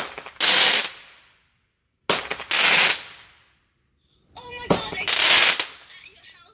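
A 'Party Shots' consumer firework going off, firing a run of shots about every two seconds, each a sharp burst of noise lasting under a second.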